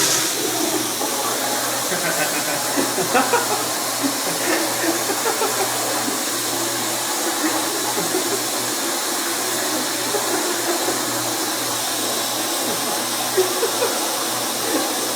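Toilet flushing with unusual force: a loud, steady rush of swirling water that keeps going without letting up.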